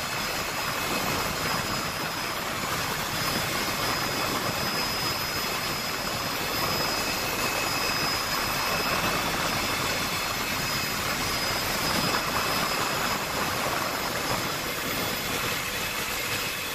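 Helicopter in flight heard from inside the cabin: a steady rushing engine and rotor noise with a faint constant high whine over it.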